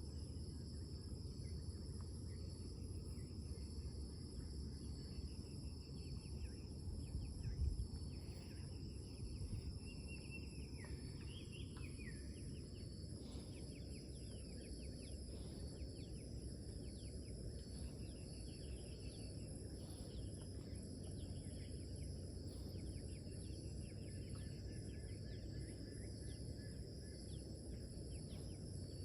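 Pre-dawn forest chorus. Insects hold several steady, high-pitched tones throughout, while birds call in short chirps and quick downward-sliding notes, with a warbling call about ten to twelve seconds in. All of it sits over a steady low rumble.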